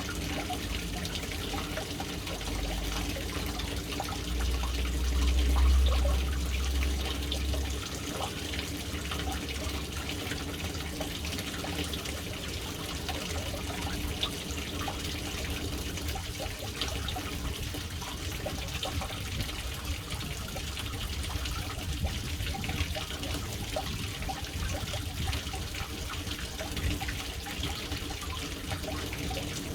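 Water falling steadily into a household water tank through its float-valve inlet, a continuous trickling splash. A low rumble swells in about four seconds in and fades out about eight seconds in.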